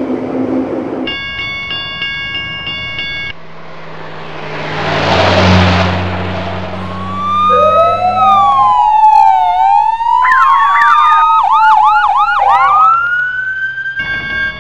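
Dubbed sound effects: a steady warning tone from a level crossing, then a vehicle passing with a rising and falling rush of engine noise, then a police siren wailing and yelping in overlapping glides for about five seconds. The warning tone returns near the end.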